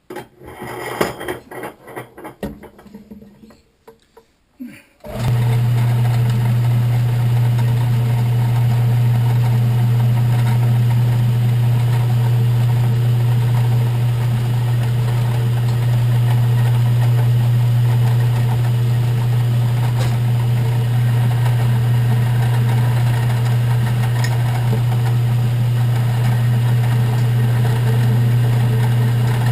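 Metal clinks and knocks of tooling being handled, then a milling machine's electric motor switches on about five seconds in and runs with a steady, loud hum.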